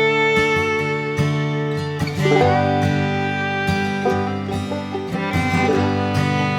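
Background music: an upbeat acoustic string tune with plucked guitar or banjo and fiddle, in a bluegrass or country style.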